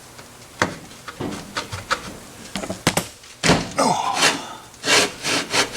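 Scattered metallic clicks, clanks and knocks from work on a transmission being removed from under a car, with one heavy thud about three and a half seconds in.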